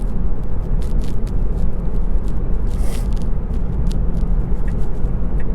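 Steady road and tyre noise inside the cabin of a Tesla Model 3 driving at highway speed, a low rumble with scattered faint ticks.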